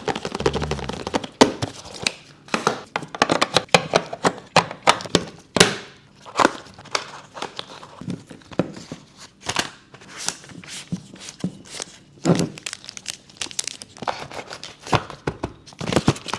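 Packaging being handled and torn open, crinkling and tearing with many irregular sharp clicks and knocks.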